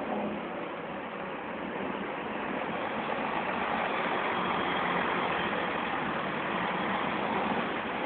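A large bus's engine running at low speed, a steady noisy sound that grows slightly louder partway through.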